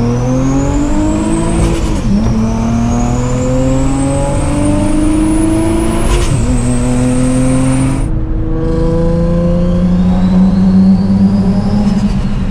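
Turbocharged Infiniti G35's V6 engine accelerating hard through the gears. The revs climb and drop at upshifts about two and six seconds in, with a high whine rising alongside. After a brief break about eight seconds in, the engine holds a steady speed.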